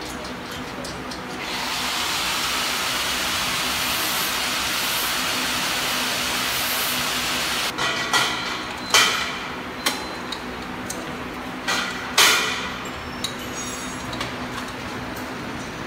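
Sharp metal knocks and clanks, about seven over the second half, the loudest near the middle, from conveyor-elevator frame and belt parts being fitted together. Before them a steady hiss lasts about six seconds. A steady machine hum runs underneath.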